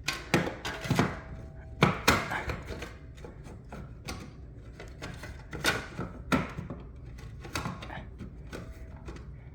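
Plastic cover of a wall-mounted doorbell chime being pushed and knocked back onto its base: a series of irregular knocks and clicks.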